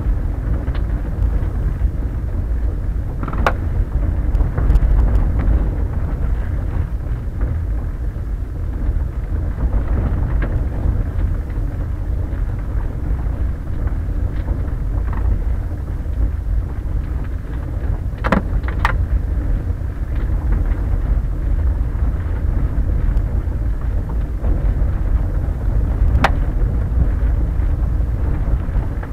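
Quest velomobile rolling over a rough gravel road: a steady low rumble from the tyres and the enclosed shell, with a few sharp clicks and knocks as it jolts over stones, two of them close together about two-thirds of the way through.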